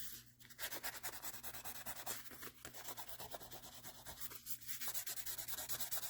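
Fine-grit wet/dry sandpaper rubbed back and forth over soft metal car trim, in quick, even scratchy strokes that start about half a second in. The trim is being sanded smooth to shine it up ahead of polishing.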